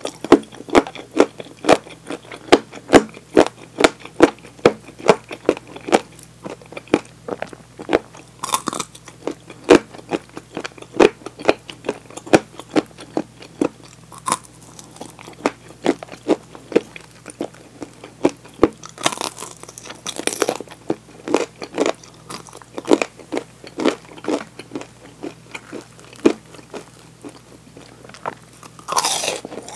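Close-miked crunching and chewing of crispy-battered fried chicken drumsticks: loud, rapid crisp crunches with each bite and chew, thinning out in the second half.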